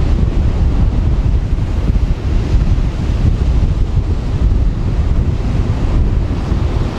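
Gusty wind buffeting the microphone over the steady wash of surf breaking on the shore.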